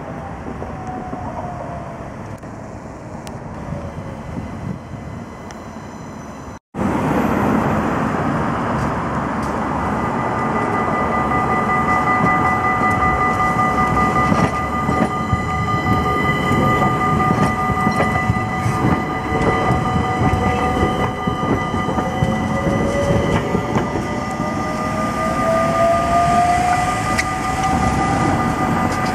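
CAF Urbos low-floor electric tram (SL A32): as it approaches and slows, its traction motor whine falls in pitch over a low rumble. After a sudden cut, close by, the tram gives a steady multi-pitched electrical whine from its onboard equipment. From about two thirds of the way in, the motor whine rises steadily as the tram pulls away and gathers speed.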